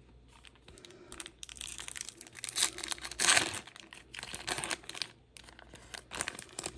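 Foil booster pack wrapper crinkling as it is torn open by hand, in irregular crackles with the loudest about three seconds in.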